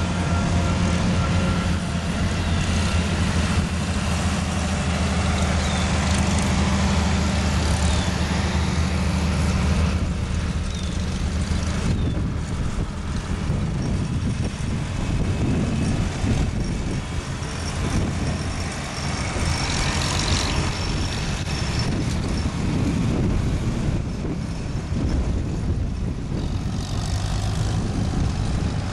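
Vintage farm tractor engines running as the tractors drive past one after another. For about the first ten seconds there is a steady low engine note from a green John Deere close by. After that, the engines of red Farmall and International tractors give a rougher, more uneven sound.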